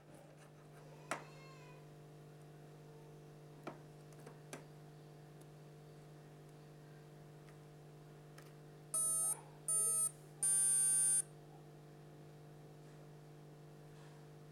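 Three electronic beeps, two short and then a longer one, over a steady low hum.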